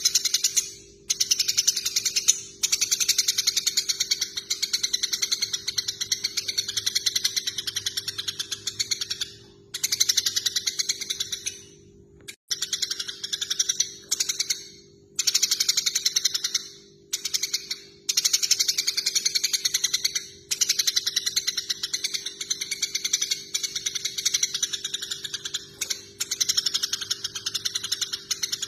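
Eurasian tree sparrows chattering: fast, dense runs of sharp chirps lasting a few seconds each, broken by short pauses, the agitated calling of sparrows fighting. A steady low hum runs underneath.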